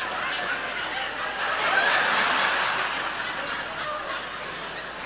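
Theatre audience laughing, the laughter swelling to its loudest about two seconds in and then ebbing.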